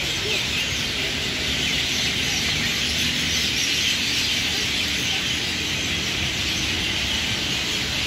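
A dense chorus of many birds chirping and chattering at once in a large banyan tree, steady throughout, over a low background rumble.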